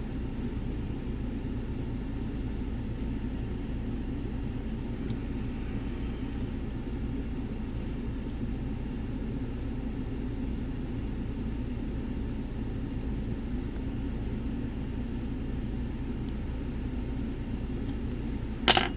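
Steady low background rumble, with a few faint ticks of lock picks working the pins of a Nemef NF4 lock and one sharp click near the end.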